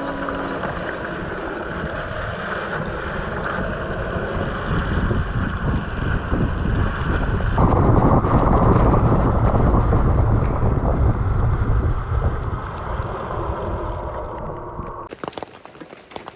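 A Rivian R1T electric pickup driving on a wet road: a steady rush of tyre and wind noise with wind buffeting the microphone. The deep rumble swells about halfway through, then eases, and cuts off suddenly near the end.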